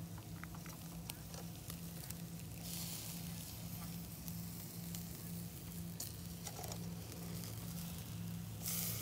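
Marinated meat sizzling on a small charcoal hibachi grill's wire grate as it is turned with metal tongs. The sizzle flares up loudly about three seconds in and again near the end, with a few light clicks of the tongs early on. A steady low hum runs underneath.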